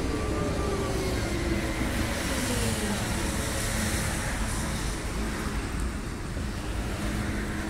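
V3A-93 articulated tram pulling into a stop: its traction drive whines down in pitch as it brakes, settling about two and a half seconds in to a steady low hum while it stands, over a low rumble.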